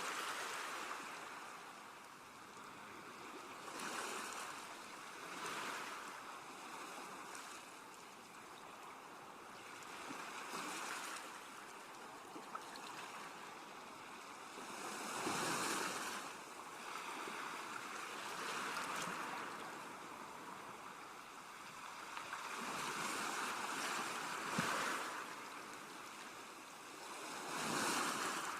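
Sea waves washing onto a shore, each wave swelling and falling away every few seconds, with bigger surges about halfway through and near the end.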